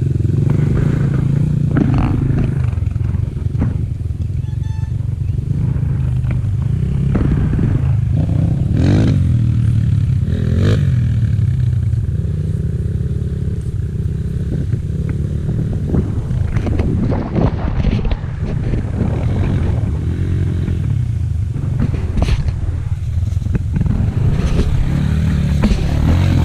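Enduro motorcycle engine running under way, its pitch rising and falling with the throttle, with scattered knocks and clatter along the ride.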